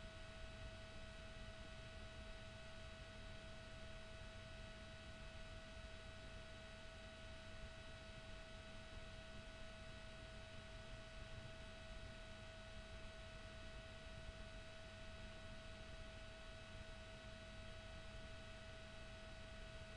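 Near silence: a faint hiss and low hum with a steady high-pitched tone that never changes, the electrical noise of the recording.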